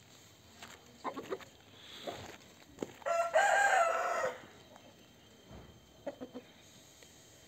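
Kaonayen gamecock crowing once, a held crow of a little over a second about three seconds in, with a few short, soft clucks before and after.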